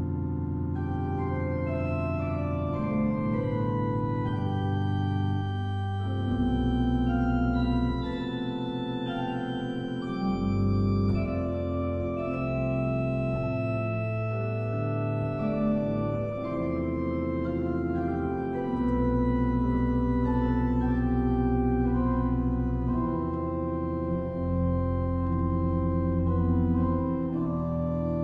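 Organ music: slow, held chords over deep bass notes, the harmony changing every second or two.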